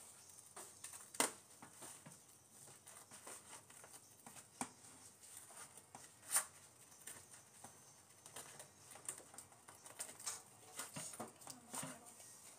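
Light clicks, taps and rustles of a fork against a plastic food container while eating, with a few sharper clicks, the loudest about six seconds in, and a run of small ticks near the end.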